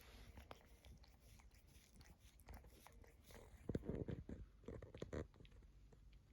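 Ragdoll cat grooming itself: faint licking and nibbling at its fur, a run of small wet clicks that grows denser and louder a little past halfway.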